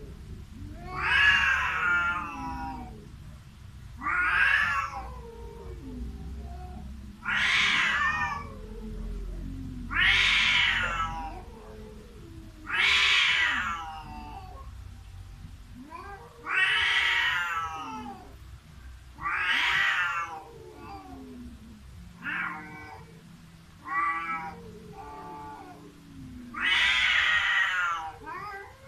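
Two cats yowling at each other in a face-to-face standoff: long wavering caterwauls, rising and falling in pitch, one every two to three seconds, with a few shorter calls near the end.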